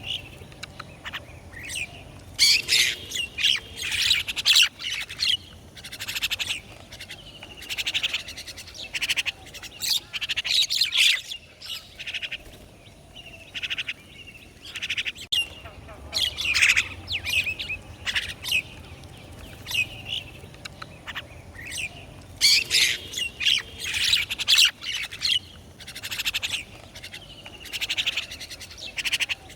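Birds calling and chirping outdoors, in repeated clusters of high calls a second or two long every few seconds.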